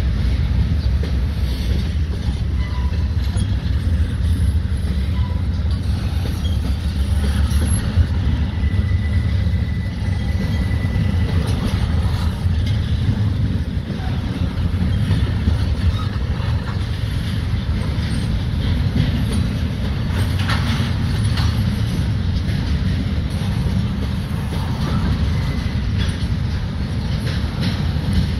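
Double-stack intermodal freight train of container well cars rolling past, a steady low rumble of steel wheels on rail, with a few clicks about two-thirds of the way through.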